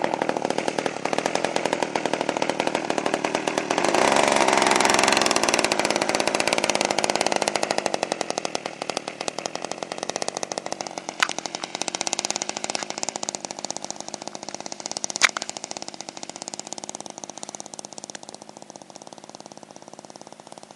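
Radio-controlled model airplane's small engine running with its propeller spinning, a fast, even buzz. It gets louder for a few seconds about four seconds in, then fades steadily as the model taxis away across the grass. Two sharp clicks stand out in the second half.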